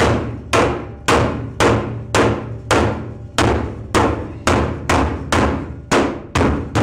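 A hammer striking the steel wall framing of a metal office container again and again, about two blows a second, each with a metallic ring. The blows are bending the metal to close a gap in the wall.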